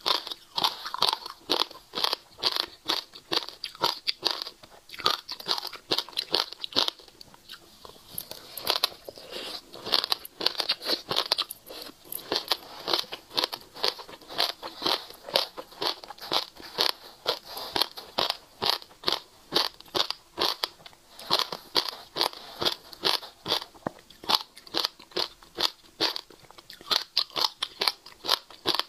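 Close-miked crunching and crackling of dry seeds as fingers rummage through them in a glass bowl, mixed with crunchy chewing. It is a dense, rapid run of sharp crackles, with a short lull about seven seconds in.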